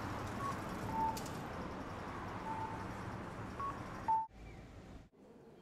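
Tosaden streetcar running, a steady rumble and rush with several short high-pitched tones scattered through it. The noise cuts off abruptly about four seconds in, leaving only a faint background.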